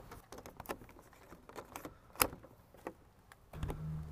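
Scattered light clicks and taps of hard plastic as a solar floodlight is handled and adjusted on its fence mount, the sharpest about two seconds in. A steady low hum starts near the end.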